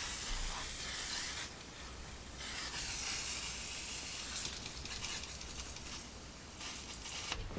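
WD-40 aerosol can spraying in several short hissing bursts, the longest about two seconds, to loosen the gummed-up nose sprocket of a chainsaw bar.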